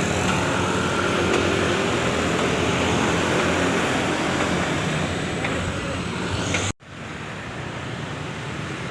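Road traffic with a heavy vehicle's engine running close by. The sound cuts out abruptly about seven seconds in and comes back as quieter traffic noise.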